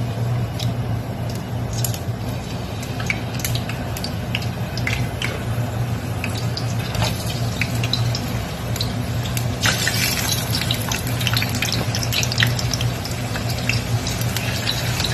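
Thin potato slices frying in hot oil in a pan: a steady sizzle with scattered crackling pops, getting louder about ten seconds in as more slices go in.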